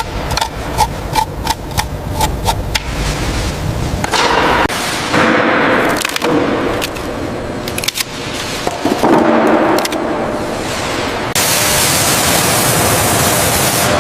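Sharp tapping, about three or four knocks a second, for the first few seconds. It is followed by rough scraping noise, and about eleven seconds in a steady hiss starts suddenly.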